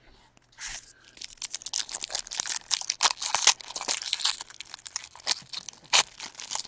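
Foil wrapper of a trading card pack being torn open and crinkled by hand: a dense run of crackling begins about a second in, with a few louder snaps near the end.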